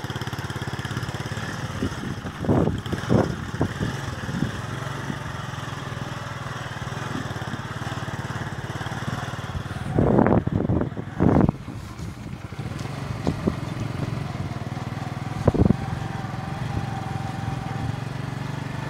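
Motorcycle engine running steadily while riding. A few brief louder bursts come about two to three seconds in, twice around ten to eleven seconds in, and once near fifteen seconds in.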